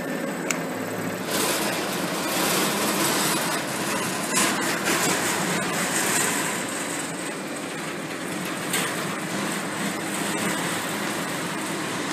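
Paper pile aligning machine running with a steady mechanical rushing noise that comes up about a second in, while the sheets of the pile rustle and flap as they are fanned by hand.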